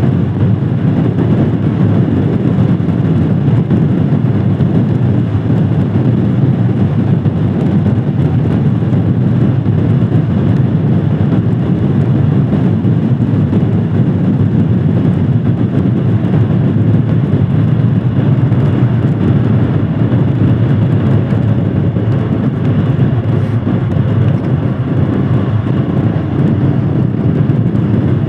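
Royal Enfield Himalayan Scram 411's single-cylinder 411 cc engine running at a steady pace on the move, under a steady low rush of air and road noise.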